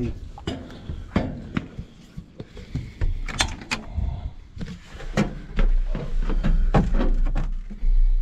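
Clicks, clunks and knocks of a self-propelled crop sprayer's cab door and metal steps as someone climbs into the cab, with a low rumble through the second half.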